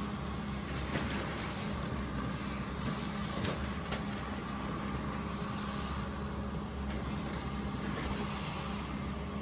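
Heavy demolition machinery's diesel engine running steadily, with a few faint knocks and cracks of the building being broken up.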